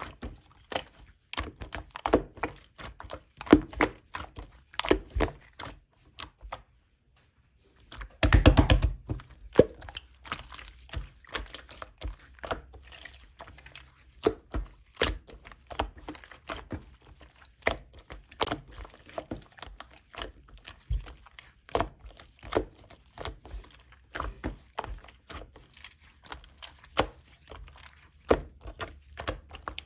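Slime being played with by hand, making irregular sticky clicks and pops. It stops briefly about seven seconds in, then gives a quick run of crackling clicks.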